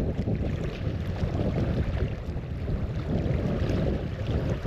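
Wind buffeting the microphone: a steady low rumbling noise with gusty flutter.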